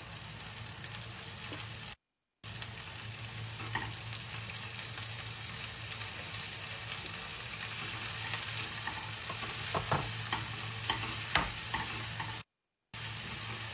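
Chopped onion and spinach sizzling in olive oil in a frying pan while being stirred, with scattered light clicks and scrapes of the utensil against the pan. The sound cuts out completely twice, briefly.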